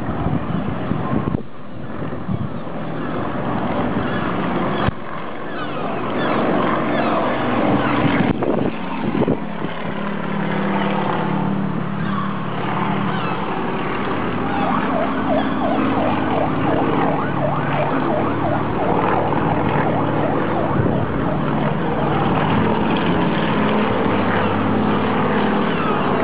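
A small propeller plane flying overhead, its engine droning steadily from about ten seconds in, over a background hiss of wind and distant city noise. Birds call high above throughout.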